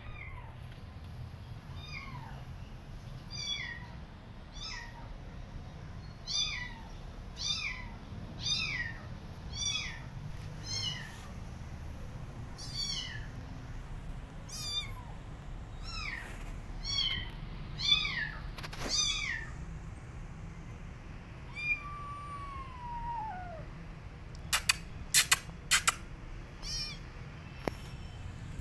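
Kitten meowing over and over in short, high cries that fall in pitch, about one a second, then one longer, lower falling meow. A few sharp clicks come near the end.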